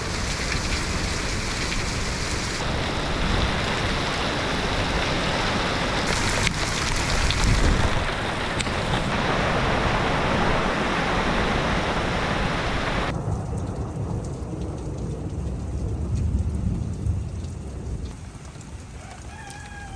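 Heavy rain pouring steadily during a thunderstorm, with thunder rumbling; the loudest rumble comes about seven to eight seconds in. About thirteen seconds in the rain's hiss drops abruptly and turns quieter.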